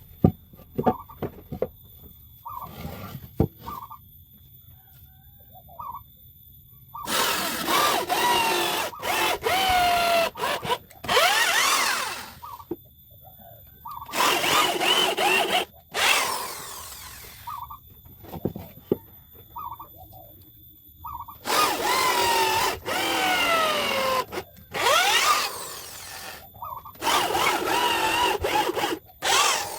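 Electric drill boring dowel holes into wooden table legs in about six bursts of one to three seconds each, the motor pitch sliding as it bites into the wood. Short motor blips and light knocks fill the pauses between holes.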